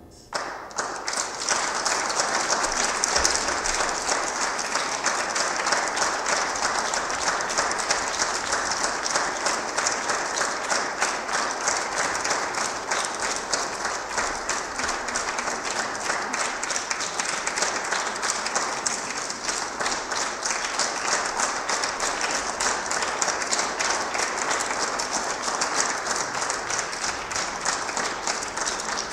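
Audience applauding, the clapping starting about half a second in and then going on steadily.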